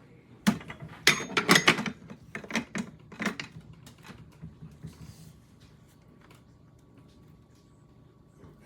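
A quick run of sharp clicks and knocks from hard objects being handled, lasting about three seconds.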